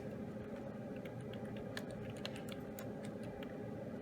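Computer keyboard typing: scattered, irregular keystroke clicks, as a file name is entered.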